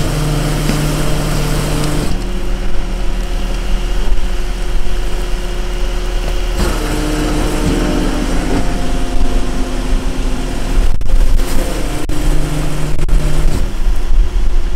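Rear-loading garbage packer truck's packing mechanism running: the engine and hydraulics work steadily as the packing plate sweeps refuse into the body. The hum shifts in pitch every few seconds.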